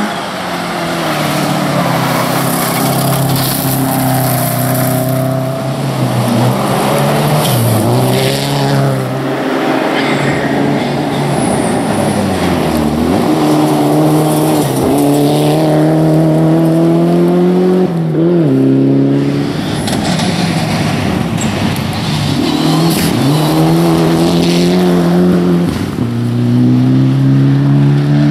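Rally cars driven hard on a loose gravel stage, engines revving up and dropping off several times as they shift gears and lift for corners, with the noise of tyres on gravel.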